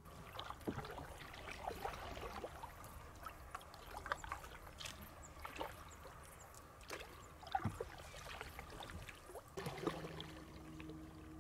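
Quiet sounds of canoe paddles in calm river water: scattered small splashes and trickling drips as the blades dip and lift. A faint steady low hum comes in about ten seconds in.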